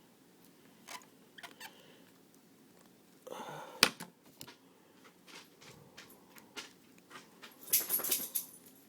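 A hand tool working at a small fuel-line quick-disconnect adapter, scraping out leftover plastic: scattered light clicks and taps, a short scratchy scrape ending in a sharp click about four seconds in, and another scratchy burst near the end.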